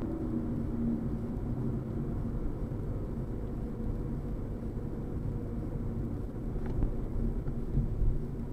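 Steady low road and engine rumble inside a car's cabin cruising at highway speed, picked up by a mirror dashcam's built-in microphone.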